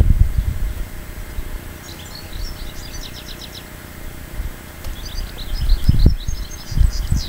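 A songbird singing two phrases of quick, high, chirping notes, the first about two seconds in and the second from about five seconds in, over a low rumble with a few thumps near the end.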